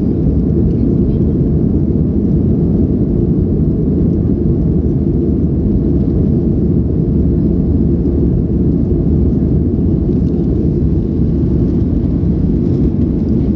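Steady, low-pitched cabin noise of a Boeing 737 in its climb after takeoff: the jet engines and rushing airflow heard inside the cabin.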